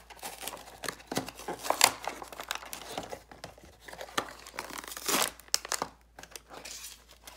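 Thin cardboard packaging torn open by hand, with irregular tearing and crinkling of the box and the clear plastic tray inside; a longer, louder rustle about five seconds in.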